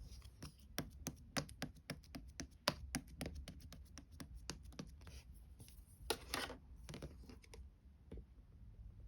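Pearl slime being pressed and worked by hand, making a quick run of small clicks and pops, with a short louder rustling squish about six seconds in.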